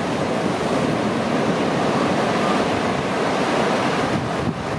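Sea surf: a wave rushes and washes in a dense, steady hiss, easing slightly near the end.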